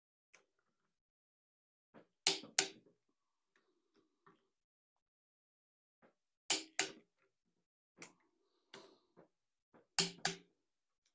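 Click-type torque wrench breaking over at its set torque of 55 ft-lb on cylinder head bolts: three sharp double clicks, about four seconds apart, each showing a bolt has reached the set torque.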